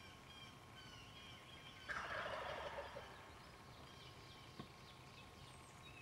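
A turkey gobbles once, a rapid rattling call about a second long. Small birds chirp faintly in the background.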